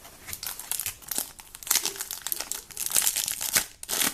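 Plastic wrapping of a pack of football trading cards crinkling and tearing as it is ripped open by hand, in irregular crackly rustles that grow louder through the second half.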